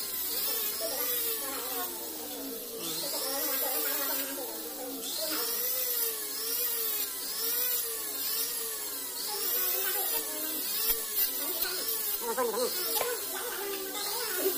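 Jeweller's rotary tool (flex-shaft micro motor) whining as its blue bit grinds and polishes a faceted silver ring. The pitch dips and recovers about once a second as the bit is pressed onto the metal and eased off, with a few light clicks near the end.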